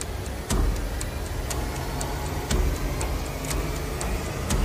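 A clock ticking steadily, about two ticks a second, over a low rumble.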